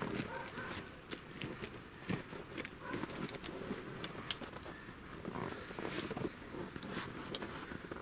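Heavy steel anti-skid tyre chain clinking and rattling as its links are handled and hooked together at the wheel, a scatter of short metallic clinks with the sharpest about three seconds in.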